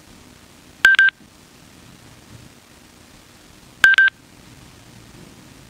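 Sena SC1 helmet Bluetooth headset giving short electronic double beeps, two of them about three seconds apart, while it sits in pairing mode waiting for the navigator to connect.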